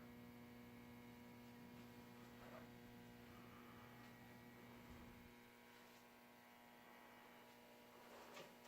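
Near silence: a faint, steady electrical hum. A low rumble under it stops about five seconds in.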